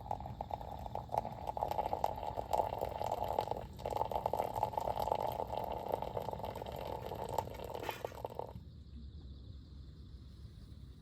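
Liquid being poured, a steady splashing pour with a brief break about four seconds in, stopping about eight and a half seconds in.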